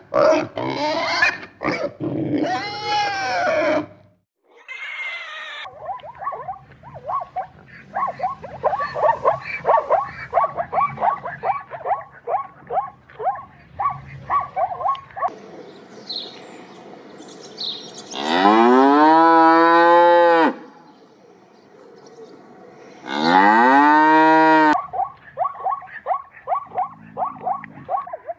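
A string of different animal calls. The loudest are two long cow moos, one past the middle and one a few seconds later, each falling in pitch and then holding. Before them comes a long run of quick, repeated calls.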